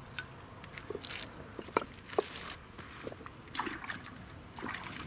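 Light sloshing and splashing of water at the bank, with scattered small knocks and clicks.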